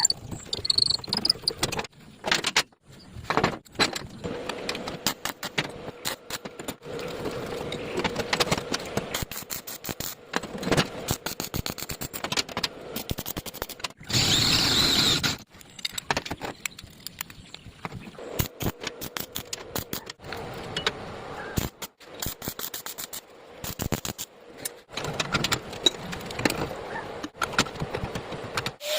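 Metal parts clinking, tapping and knocking in quick irregular strikes during metal fabrication of a spray paint can handle, with a loud steady hissing burst about halfway through lasting about a second and a half.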